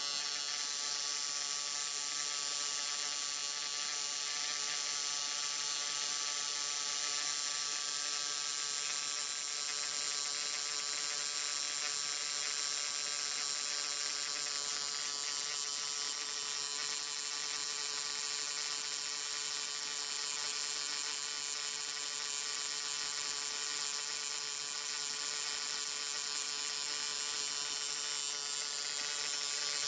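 Low-voltage electric arc buzzing continuously: a steady electrical hum with many overtones under a bright, sizzling hiss, even in level throughout.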